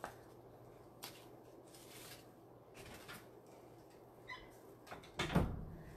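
Soft rustling of deco mesh and feather boas being handled, in a few short scrapes, with a louder handling bump a little after five seconds in, over a low steady hum from a room fan.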